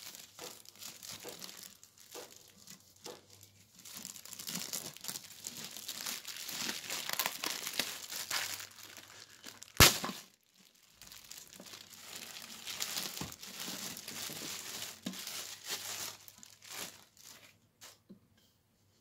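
Clear plastic bag crinkling and rustling as it is handled and pulled off a juicer part, with one sharp knock about halfway through. The crinkling stops near the end.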